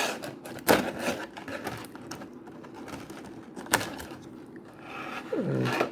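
Cardboard box and plastic packaging being handled and opened, a faint rustling with two sharp clicks, one about a second in and one near the middle.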